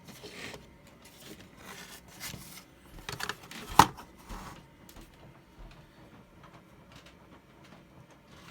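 Plastic Lionel FasTrack sections being handled and moved: scattered light knocks and rustles, with one sharp click about four seconds in.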